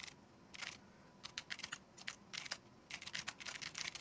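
Typing on a computer keyboard: irregular key clicks, a few at first, then quick runs of keystrokes from about a second in.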